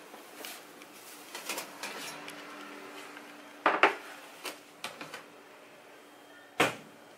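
Metal baking trays and oven parts being handled: a series of clanks and knocks, the loudest a double knock a little past the middle and a single one near the end, over a faint steady hum.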